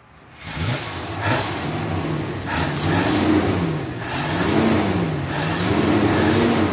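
1972 Buick Skylark engine starting about half a second in, then revved up and dropped back three times. The revs rise and fall in slow, even waves. It runs on a new hose fitted in place of a cracked one that was leaking air.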